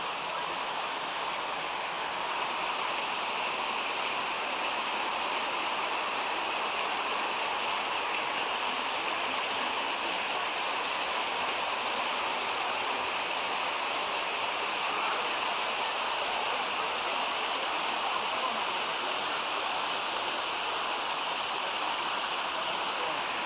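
Mountain stream rushing over a cascade of small waterfalls, a steady, even roar of falling water.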